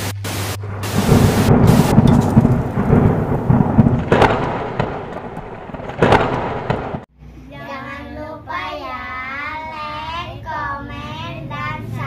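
Thunder sound effect: a loud rumble with sharp cracks about four and six seconds in, cutting off suddenly about seven seconds in. Then children sing together.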